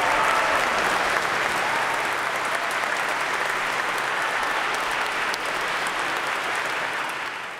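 Concert audience applauding, a steady clapping that fades out near the end.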